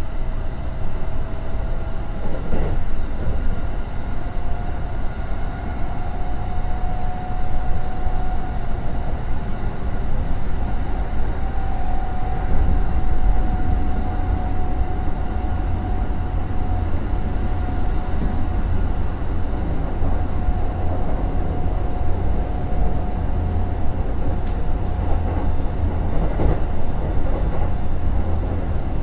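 Kintetsu 2050 series electric train running at speed. Wheels rumble on the rail under a steady whine from the drive, which rises slightly at first and then holds. There are two brief knocks, one shortly after the start and one near the end.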